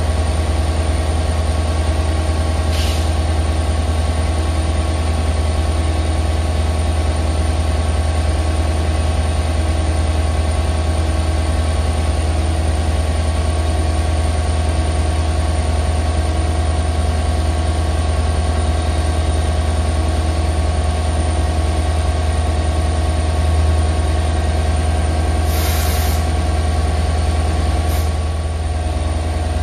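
Diesel freight locomotive engines running steadily with a deep, even rumble and a faint regular pulsing. Brief bursts of air hiss come about three seconds in and twice near the end.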